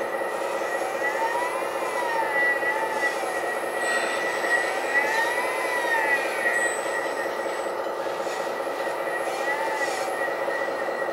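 Hydraulic pump and valves of a 1/14 RC hydraulic excavator whining steadily, the pitch rising and falling again several times as the arm and bucket move under the mix control.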